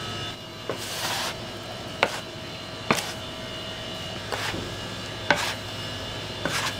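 A few sharp knocks and clacks, like tools or dough hitting a work surface, with a short rushing sound about a second in, all over a steady electrical hum.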